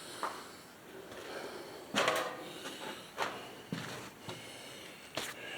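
Scattered knocks and scuffs of someone moving about in a small, echoing room, about five in all, the loudest about two seconds in.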